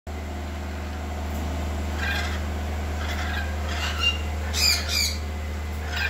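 Rainbow lorikeets squawking: a run of short, harsh calls, the two loudest close together at about four and a half and five seconds in.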